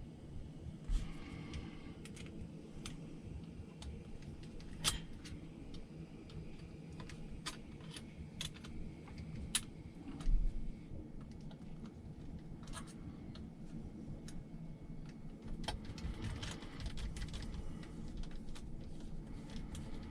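Scattered light clicks and clinks of small parts and a hand tool being handled, with a few sharper knocks and a busier run of clicks near the end, over a steady low hum.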